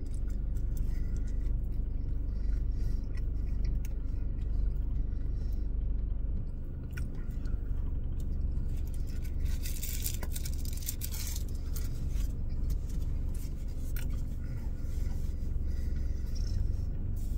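A man chewing a mouthful of cheeseburger with his mouth closed, over the steady low hum of a car's idling engine and air conditioning.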